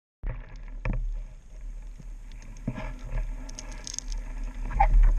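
Underwater sound picked up through a camera housing: a steady low rumble of moving water with scattered knocks and clicks, loudest near the end.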